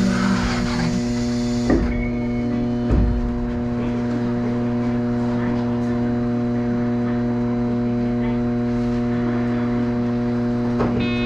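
Steady electrical hum inside a Hakodate City tram standing at a stop, its onboard equipment running while the car waits. Two dull thumps come about two and three seconds in.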